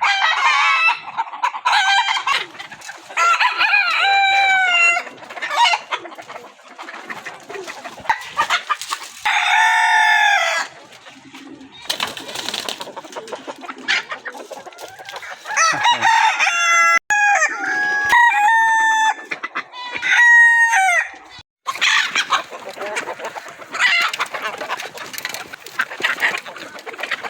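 Desi (native) roosters crowing several times in turn, with hens clucking in between.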